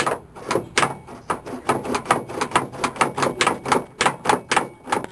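Freshly greased Chevrolet K5 Blazer door latch mechanism being worked by hand over and over, giving a fast run of sharp metallic clicks, about five a second.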